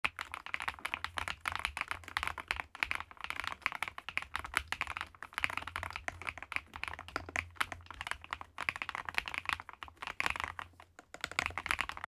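Fast, continuous typing on an EPOMAKER TH40, a 40% gasket-mounted mechanical keyboard with Wisteria switches: a dense, unbroken run of keystroke clicks.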